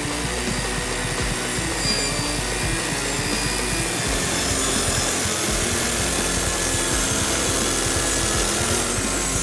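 A power saw cutting through wood: a steady, rasping cutting noise that grows a little louder about four seconds in.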